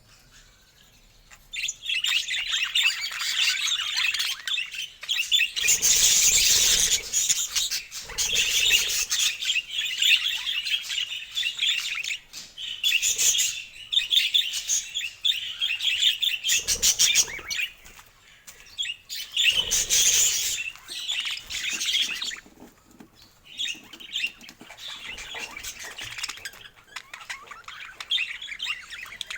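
Budgerigars chattering and warbling in a dense, busy stream of chirps. It starts about a second and a half in, with several louder bursts and short lulls along the way.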